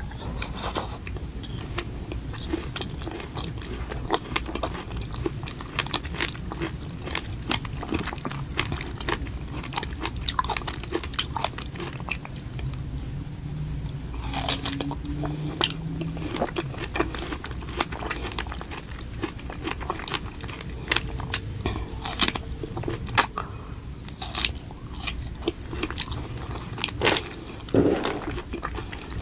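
A person biting and chewing food close to the microphone: repeated short crunches and wet chewing clicks throughout.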